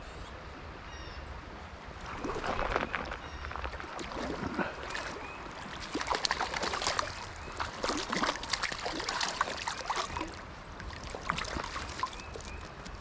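Creek water splashing and sloshing in irregular bursts over a steady trickling flow.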